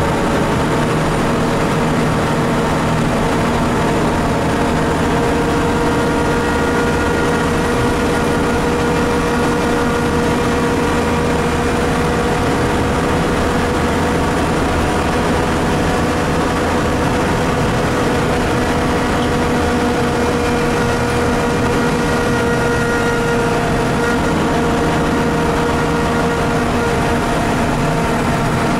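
Scania L94IB bus's rear-mounted DSC9 9-litre six-cylinder turbo diesel heard from inside the passenger cabin while driving at a steady speed: a constant engine drone with a steady whine over road noise.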